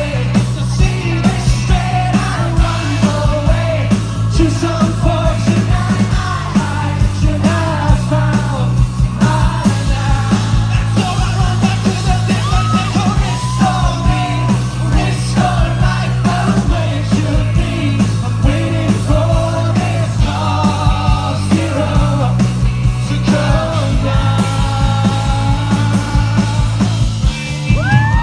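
Live rock band playing a song with a male singer's voice over a steady bass line, and the crowd yelling along.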